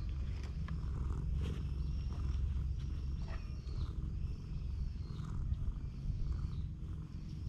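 Domestic cat purring close to the microphone, a steady low rumble.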